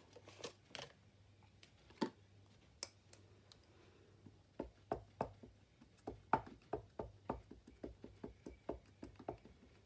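Faint light taps of a Memento ink pad being dabbed against a rubber stamp on a clear acrylic stamping block to ink it. A few taps are scattered at first, then a run of about four a second follows from about halfway in.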